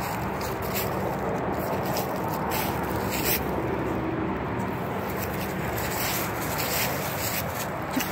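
Dry fallen leaves crackling and rustling in short bursts every second or so, over a steady rushing background noise.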